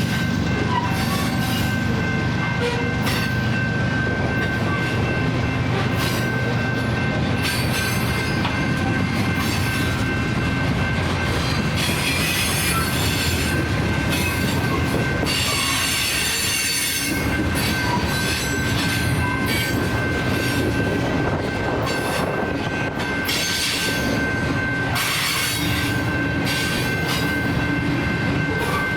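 Loaded Canadian National potash freight train rolling past, with steady rumbling and clanking wheels. A continuous high-pitched wheel squeal runs throughout.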